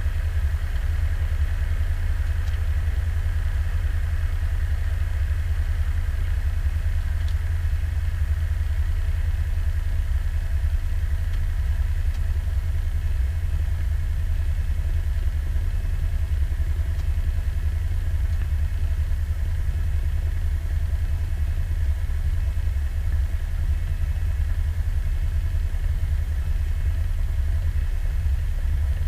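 Cessna 172's piston engine idling steadily, heard from inside the cockpit.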